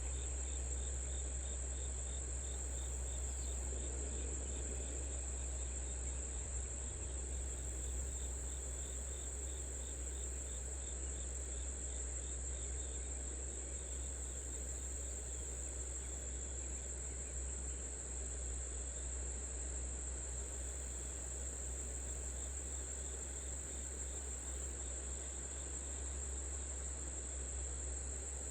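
Field insects trilling steadily in a continuous high tone, with a faint pulsing chirp under it and a constant low hum beneath.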